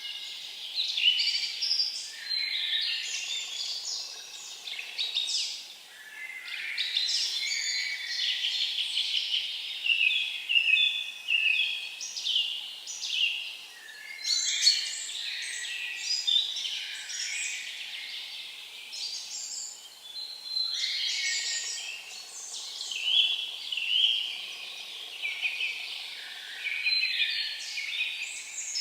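Songbirds singing: fast, varied high-pitched phrases a few seconds long, one after another with short breaks between.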